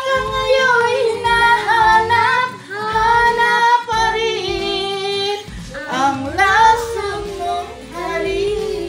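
A woman singing a Tagalog love song with long held, gliding notes over a backing track with a steady low beat.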